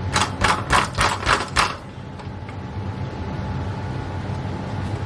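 Bicycle chain and rear sprocket clattering as the chain is worked off: about six sharp metallic rattles in quick succession in the first two seconds, over a steady low hum.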